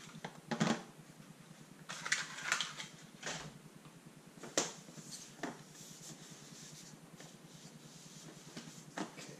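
Hands setting down and moving small plastic drone accessories and a cardboard box on a table: a handful of short knocks and clatters with quiet gaps between, over a faint steady hum.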